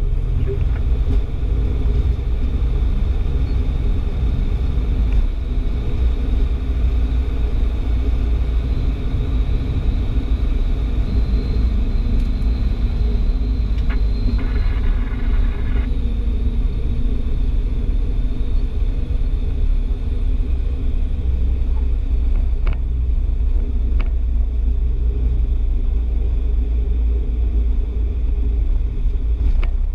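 Light single-engine propeller aircraft's engine and propeller running steadily, heard from inside the cockpit as a loud, low drone with rumble as it rolls along the runway after landing. About halfway through, a brief higher-pitched tone sounds for about two seconds.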